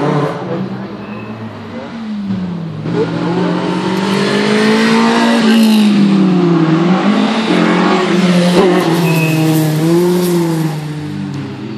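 Rally car engine revving hard as it passes, the pitch rising and falling again and again with throttle lifts and gear changes, loudest in the middle and fading away near the end.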